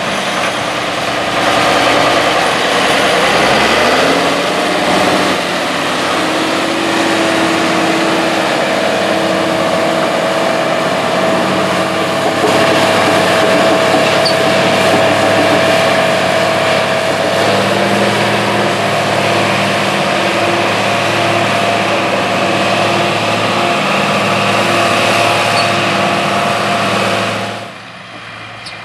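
Ford 9600 tractor's six-cylinder diesel engine revving up as it pulls away with a loaded trailer about three seconds in, then running steadily under load while driving, with a steady whine over the engine. The sound drops away sharply near the end.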